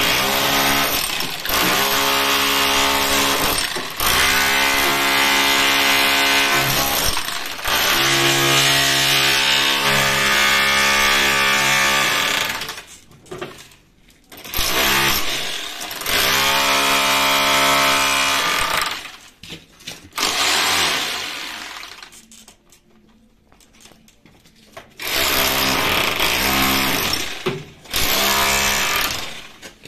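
SDS rotary hammer driving a pointed chisel bit, chipping concrete and plaster from a window sill. It runs in long bursts: one of about twelve seconds, then shorter runs of a few seconds each, with a near-quiet pause of several seconds in the second half.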